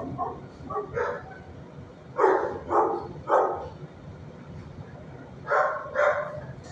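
Dog barking: one bark about a second in, three quick barks in the middle, and two more near the end.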